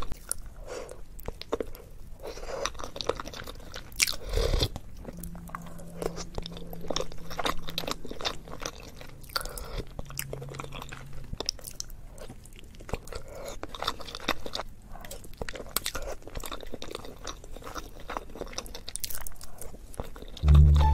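Close-up wet chewing and mouth smacks of a person eating soft-boiled eggs in spicy sauce, with many short irregular clicks, and sips of sauce from a wooden spoon.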